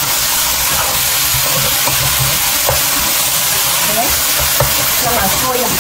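Pork, mushrooms and vegetables sizzling steadily in a nonstick wok with sauce in the pan, while a spatula stirs and tosses them.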